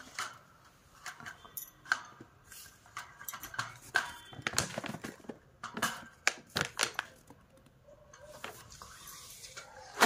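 Irregular clicks and rattles of a clear plastic feeder cup being handled against the metal wire bars of a bird cage, thinning out near the end.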